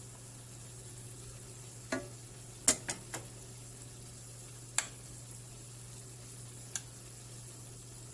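Ground pork and bitter gourd sizzling steadily in a stainless steel pan, with a wooden spoon stirring and knocking against the pan and the plate beside it: a quick cluster of sharp knocks about two to three seconds in, the loudest near the start of that cluster, then two single knocks later.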